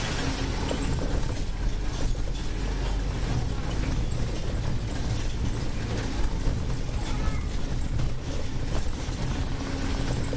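Scania Citywide city bus driving, heard from inside the driver's cab: a steady low engine and road rumble with frequent short rattles and knocks from the bodywork.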